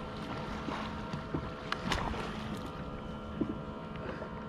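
Water sloshing against a plastic sit-on-top kayak's hull, with wind on the microphone and a few scattered light clicks and knocks.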